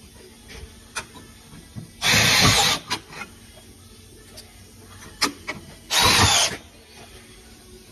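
Cordless drill running against a metal plate on a car's sheet-metal body panel, in two short bursts about four seconds apart, with scattered clicks and taps between them.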